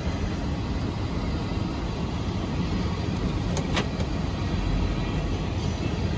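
Low, steady rumble of a Union Pacific freight train passing the level crossing ahead, heard from inside a stopped car's cabin. Two brief clicks a little past the middle.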